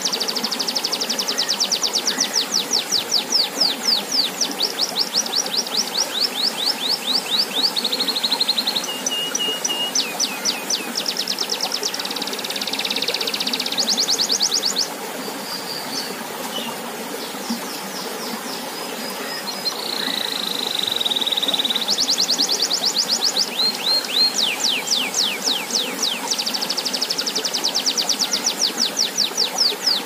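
Domestic canary singing long, rapid trills of repeated sweeping notes, with a quieter stretch of softer single notes and a held tone in the middle. Under it, the steady splash of a small fountain's water jet falling into a pond.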